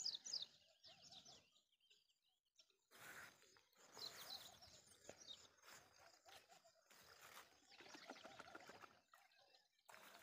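Faint birdsong: scattered high chirps and short falling calls, strongest at the very start and again about four seconds in.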